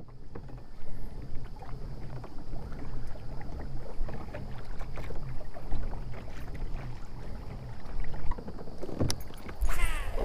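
Fishing kayak on a lake: water lapping and splashing against the hull, with small knocks and a low drone that wavers up and down. A couple of sharper noises come near the end.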